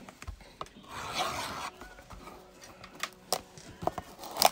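A shrink-wrapped cardboard trading-card blaster box handled by hand: a brief rubbing scrape about a second in, then a few light clicks and taps as it is gripped and turned.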